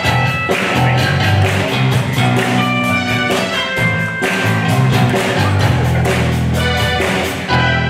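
Live rock band playing an instrumental passage: electric guitars, bass guitar and a drum kit with a steady beat.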